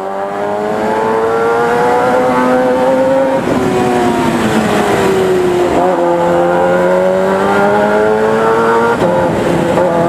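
Suzuki GSX-R 750 SRAD's inline-four through a Firetong 4-into-1 aftermarket exhaust, accelerating up through the gears. The engine's pitch climbs steadily and drops at each upshift, about three and a half, six and nine seconds in.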